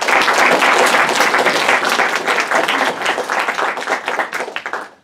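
Audience applauding: many people clapping together, a dense patter that dies away just before the end.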